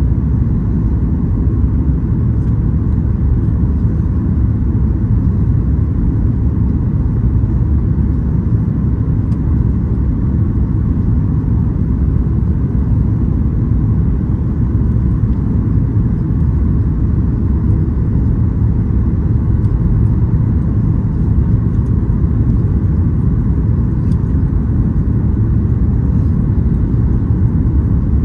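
Steady low rumble of engine and airflow noise inside an airliner cabin during the descent to land, even in level throughout with no distinct events.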